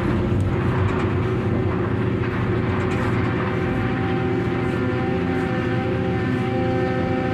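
A ship-mounted hydraulic excavator running under load as its bucket digs into limestone cargo in the hold. The engine and hydraulic pumps make a steady drone with held whining tones, and a new tone joins about four seconds in.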